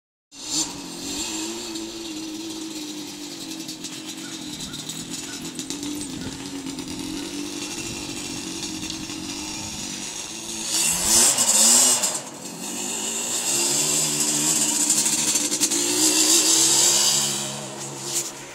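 ATV engine running steadily, surging louder with a quick rise and fall in pitch about eleven seconds in, then running loud again before fading away near the end.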